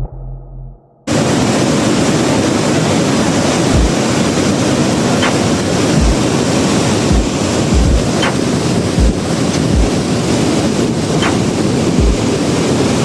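A waterfall's steady roar of rushing water, cutting in abruptly about a second in, with gusts of wind buffeting the microphone.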